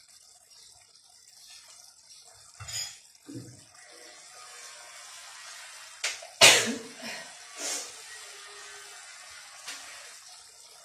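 Spiced potato curry simmering and bubbling in a pan on a gas burner, a steady soft hiss. Several short, sharp sounds break in, the loudest about six and a half seconds in.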